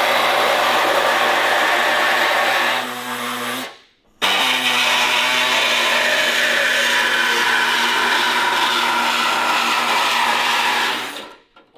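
Pneumatic reciprocating air saw cutting through a rusty steel car door, running steadily in two long runs, with a brief stop about four seconds in.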